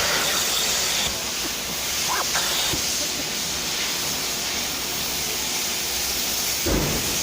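Steam cleaner hissing steadily as it jets steam, with a brief low thud near the end.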